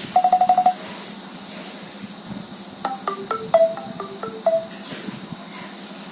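Nokia 3120 classic phone speaker playing short alert tones. First comes a quick run of identical beeps on one pitch lasting under a second. After a pause of about two seconds, a brief melody of about nine short electronic notes jumps up and down in pitch.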